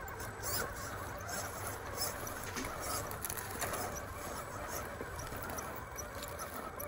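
RC rock crawler on Cross RC Blackrock tires crawling up a dirt slope: a steady, faint whine from its electric motor and gears, with small crunches and clicks from the tires working over dirt and dry leaves.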